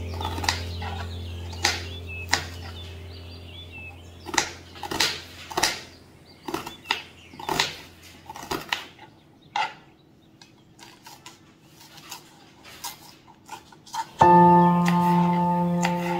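Kitchen knife chopping red onion and then green chilli on a cutting board: sharp taps on the board, about one to two a second, growing fainter partway through. Background music with sustained notes comes in about two seconds before the end.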